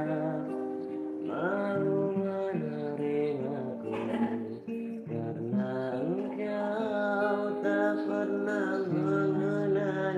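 A voice singing long, gliding notes of a song melody over acoustic guitar accompaniment.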